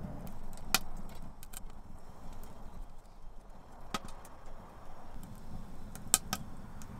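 Wood fire crackling inside a small wood-burning stove, with a few sharp pops scattered through it; the loudest comes about six seconds in.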